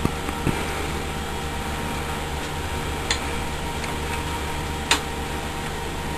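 Wrench work on a BMX pedal being tightened onto the crank arm: four scattered sharp metal clicks, the loudest about three and five seconds in, over a steady low hum.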